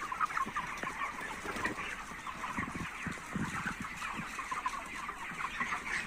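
A large flock of chickens in a poultry shed clucking and peeping all at once, many short overlapping calls making a continuous chatter.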